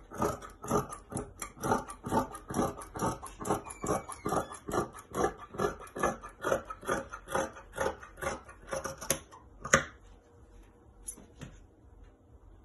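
Scissors snipping through denim in a steady run of cuts, about three a second, stopping about ten seconds in, followed by a few faint clicks.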